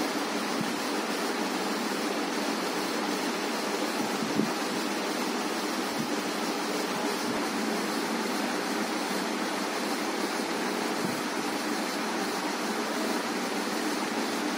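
Steady, even hiss of background noise, like a fan or air conditioner running in the room, with one small tap about four seconds in.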